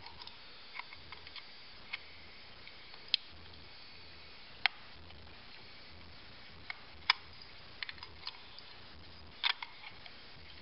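Scattered sharp plastic clicks and taps from a plastic travel wall charger and its plug adapter being handled and fitted together, irregular and a few seconds apart, with a double click about nine and a half seconds in.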